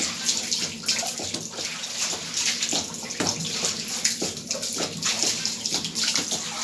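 Water running steadily and splashing, with irregular splashes throughout.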